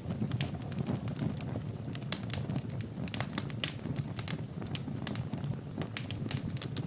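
Wood fire burning in a fireplace. The logs crackle with frequent sharp pops, several a second and uneven in strength, over a steady low rush.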